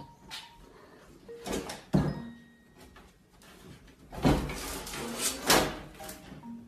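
A cat jumping onto and hanging from a lever door handle: a sharp knock about two seconds in, then the handle and latch rattling and the door being pulled open in two louder noisy bursts near four and five and a half seconds in.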